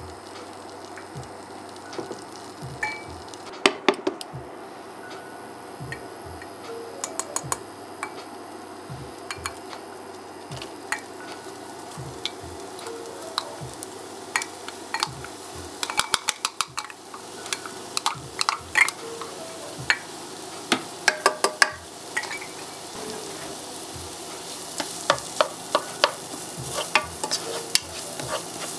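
Butter sizzling in a nonstick pot, then minced shallots and garlic frying in it and being stirred with a plastic spoon. The sizzle grows louder in the second half, and sharp clicks and taps of the utensils against the pot come in clusters.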